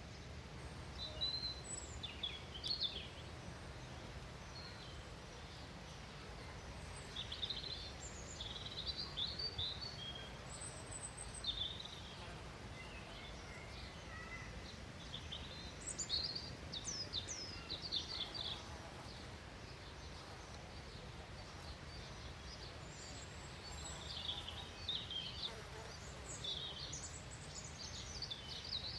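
Small songbirds chirping and calling: short, high chirps and quick trills in scattered clusters, over a steady low background rumble.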